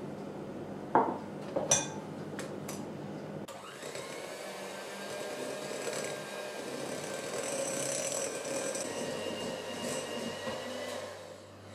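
Electric hand mixer running steadily, its beaters whipping praline into buttercream in a glass bowl. Two short knocks come about a second in.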